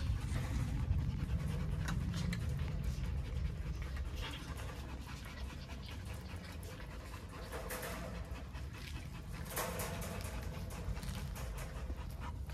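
Belgian Malinois puppies panting, with a few short clicks and knocks of paws against a wire dog crate, over a steady low rumble.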